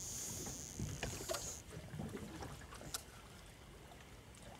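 Faint sounds of a small boat at anchor: water lapping against the hull with a few light knocks, and a steady high hiss that stops suddenly about a second and a half in.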